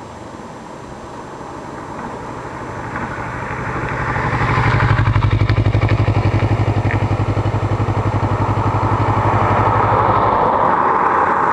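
Kawasaki Ninja 650R's parallel-twin engine through a custom quiet 'stealth' exhaust, riding toward the microphone and passing by. The exhaust note builds for about five seconds to a loud, steady, low pulsing drone that stops about ten seconds in, and a rushing hiss rises near the end.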